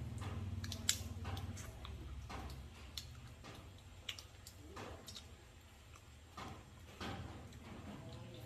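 Grilled giant river prawn being pulled apart by hand and eaten: irregular small clicks and crackles of shell and head breaking, with soft wet chewing, over a steady low hum.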